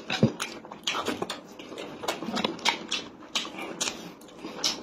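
Close-up wet chewing and lip-smacking while eating fried chicken, with quick irregular mouth clicks as meat is bitten and pulled off a drumstick bone.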